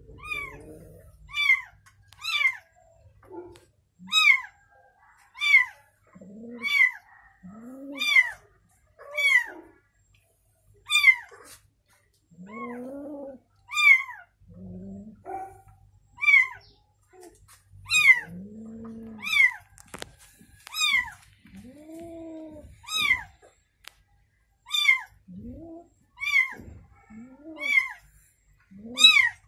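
A kitten meowing over and over in short, high-pitched cries about once a second, while an adult cat answers with lower, longer meows in between.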